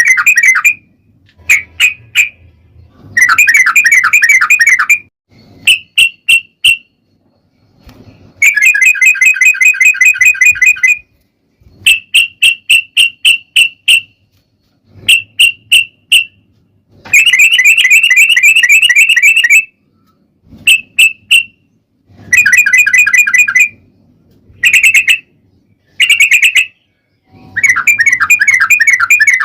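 Yellow-vented bulbul (trucukan) singing loudly: long, rapid bubbling trills of about two seconds alternate with short runs of three to six quick separate notes, phrase after phrase with short pauses between.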